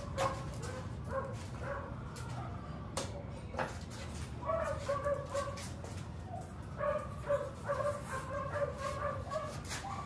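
A dog whimpering and whining in short, repeated pitched cries, over a steady low hum, with a few sharp clicks.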